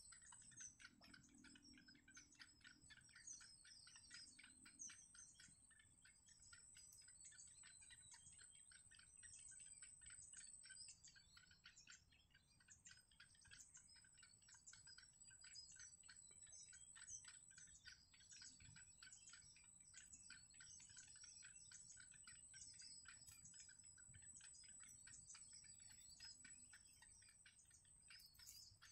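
Faint, continuous high-pitched cheeping of yellow bittern nestlings, a quick run of short chirps several times a second, with a thin steady high tone behind it.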